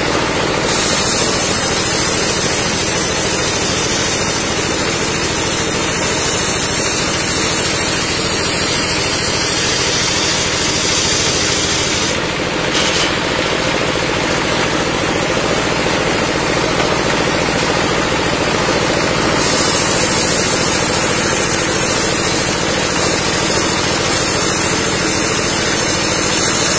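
Engine-driven table circular saw ripping a timber into a beam: the engine runs steadily under a high hiss of the blade cutting through the wood. The cutting hiss stops about 12 seconds in while the blade spins free, then starts again about 19 seconds in.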